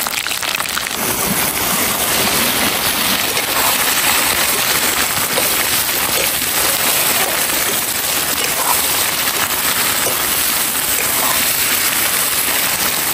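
Hot oil sizzling steadily in a wok as pieces of goat meat fry in it.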